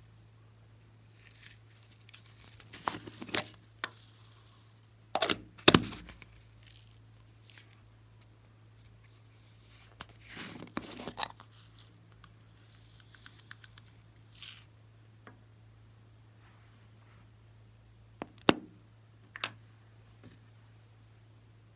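Glossy slime being handled and pulled apart by hand: scattered sticky crackles, pops and tearing sounds, with quiet gaps between them.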